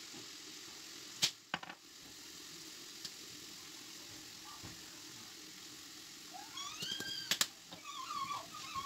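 Vegetables sizzling steadily in a frying pan, with a few sharp clicks of the utensils. From about two-thirds of the way through, high squeaky chirps rise and fall over the sizzle.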